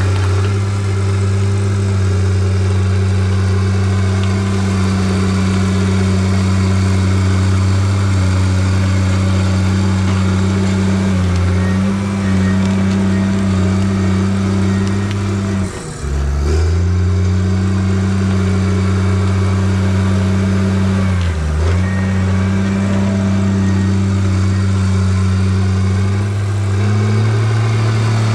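Bulldozer's diesel engine running steadily. Its pitch dips briefly twice, about halfway through and again a few seconds later, then rises slightly near the end.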